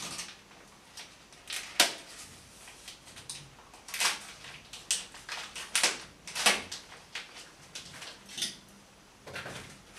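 Packing tape being cut with a knife and paper wrapping being pulled off a bass guitar's strings: a series of short crinkles, rips and scrapes, the sharpest about two seconds in.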